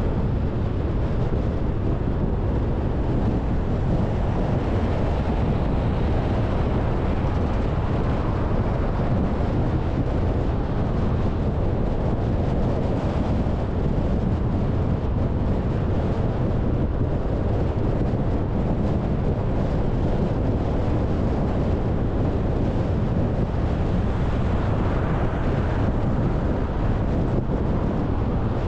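Steady road noise of a car cruising on an expressway: a low rumble of tyres on asphalt mixed with wind noise, even and unbroken throughout.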